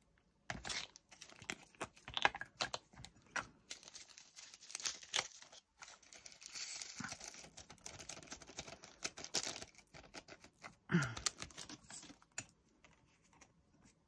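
Many tiny clicks and plastic crinkling as diamond-painting resin drills are handled in a plastic baggie and tipped into a small plastic storage pot. A short voice murmur sounds about eleven seconds in.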